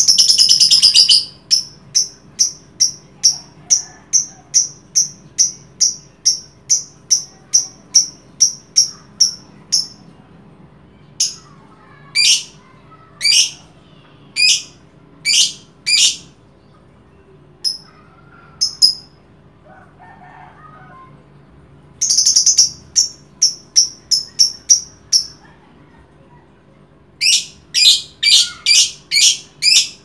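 Caged lovebird calling: a long shrill screech at the start, then runs of short, sharp, high chirps about two a second. There are pauses, and a rapid burst of chirps near the end.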